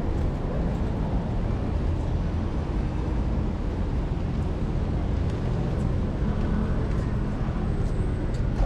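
City street traffic: a steady low rumble of passing vehicles at a busy intersection.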